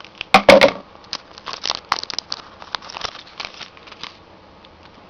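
Foil wrapper of a hockey trading-card pack being torn open and crinkled: a loud rip about half a second in, then a run of crackles that dies away after about four seconds.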